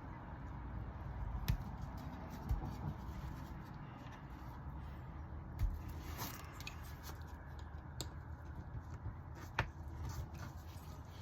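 Faint scattered clicks and light handling noises of small oil-filter-housing parts and O-rings being worked by hand, over a low steady hum.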